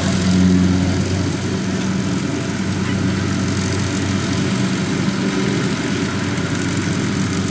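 Kubota DC-70 combine harvester's diesel engine running steadily, a constant low drone with a brief swell about half a second in.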